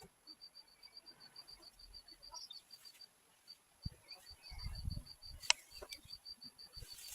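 Insect chirping in a steady series of short, high pulses, about eight a second. A brief low rumble comes in around the middle, and a sharp click about five and a half seconds in.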